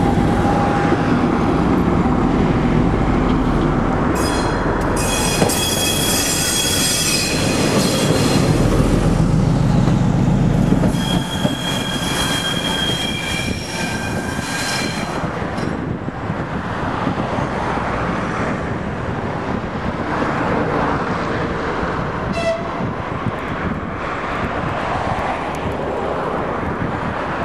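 M62 diesel locomotive's two-stroke V12 engine running loudly as it passes close, then quieter from about eleven seconds in as it moves away. High-pitched wheel squeal on curved track comes twice, around four to eight seconds and again around twelve to fifteen seconds.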